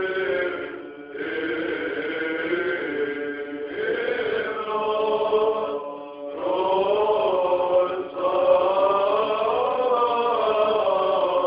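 Byzantine chant sung by men's voices: long sustained melodic phrases that glide slowly in pitch, broken by short breaths about a second in and again around six seconds.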